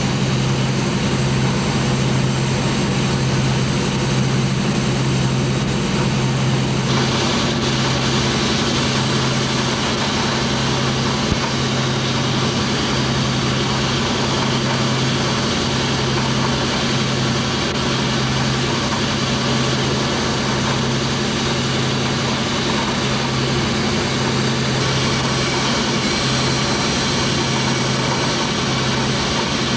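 A push boat's diesel engine running steadily under way, a constant low drone with an even hiss above it.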